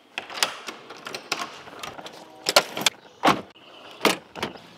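A quick run of sharp clicks and clunks from a brass doorknob and the latch of a house door being opened, then a car's door handle being pulled.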